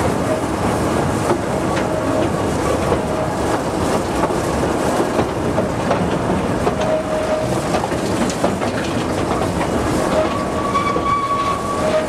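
A narrow-gauge light railway train running, heard from an open carriage: the steady clatter and running noise of the carriage wheels on the track, with short faint squeals now and then.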